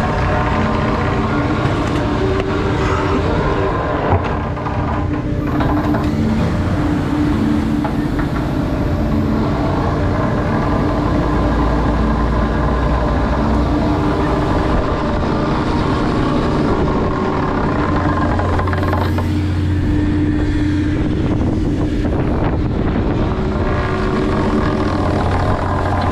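Commercial fishing boat's diesel engine and deck hydraulics running steadily: a constant droning hum, with one short knock about four seconds in.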